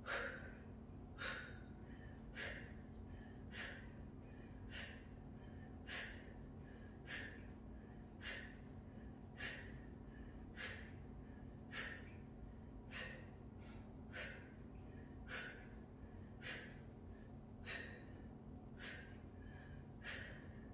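A woman's short exhalations, one about every 1.2 seconds, in time with each twist of a bicycle crunch.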